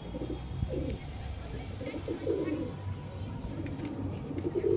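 Giribaz pigeons cooing in a few short bouts, about a second in, around two seconds in and again near the end.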